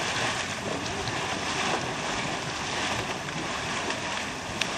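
Hot muddy water churning and splashing in a steaming thermal spring, a steady surging rush of water and steam.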